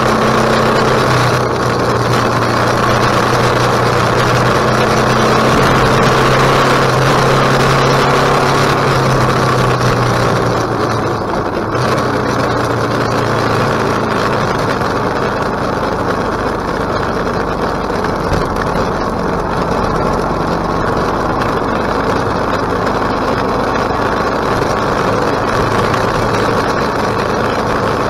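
KTM 1050 motorcycle's V-twin engine running under way, mixed with rushing wind noise. The engine note holds steady for about ten seconds, then briefly dips and gives way mostly to the wind rush.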